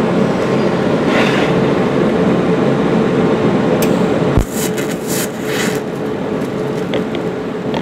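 TIG welding: a steady machine hum, then about four and a half seconds in a sharp click as the arc strikes, followed by irregular crackling and sputtering for over a second. The tungsten electrode dips into the weld puddle on this pass and is contaminated.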